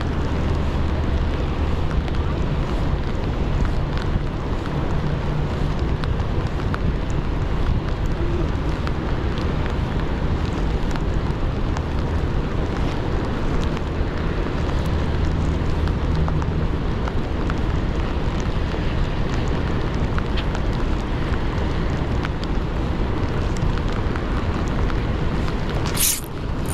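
Steady rush of rain and wind on an action camera's microphone, with a low rumble underneath and faint scattered ticks. Near the end come a few sharp rustling clicks.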